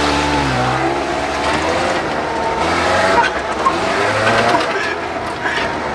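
2000 Ford Ranger pickup's engine running in low gear as it creeps along a rough dirt trail, heard from inside the cab, its pitch wavering up and down slightly.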